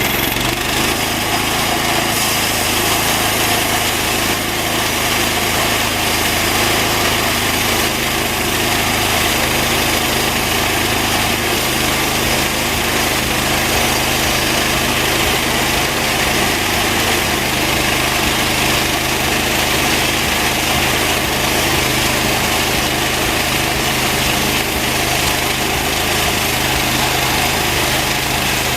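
Homemade band sawmill running steadily under its engine, its blade sawing through a large, very hard post oak log. The blade has already made about 40 cuts.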